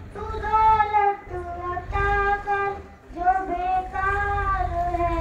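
A girl singing an Islamic devotional song (naat/hamd) solo into a microphone. She holds long, gently wavering notes with ornamented turns, pausing briefly for breath twice.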